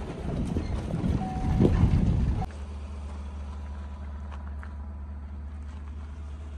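Vehicle noise: a rough rumble for the first two and a half seconds, then a sudden change to a steady low engine hum.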